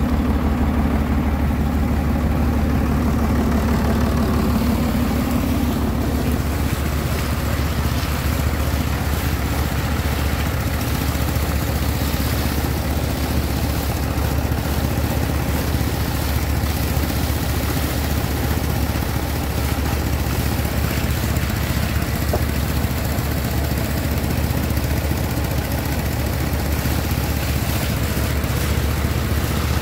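An engine running steadily at a constant speed, with a deep, even hum.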